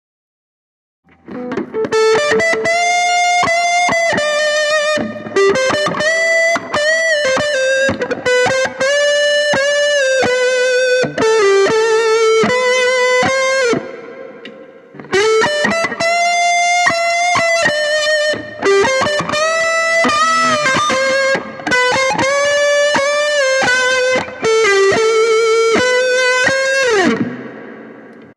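Overdriven electric guitar playing a melodic lead phrase through an overdriven amplifier. It plays in two passages with a short break about halfway.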